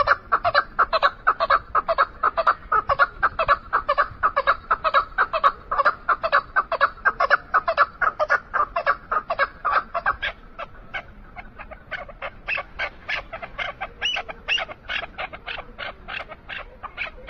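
Chukar partridge calling in a long rapid series of short chuk notes, about four a second. From about ten seconds in the calls sit higher in pitch.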